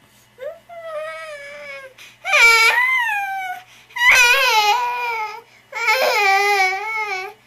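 Baby crying: four drawn-out cries, each about a second and a half long, the first one quieter than the other three.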